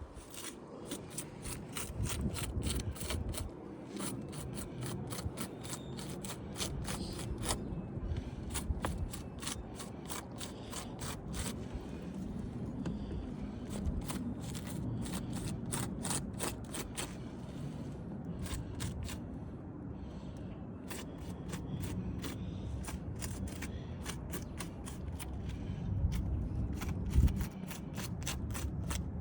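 A pen scratching on paper in quick, repeated strokes as figures are written down, over low wind rumble on the microphone.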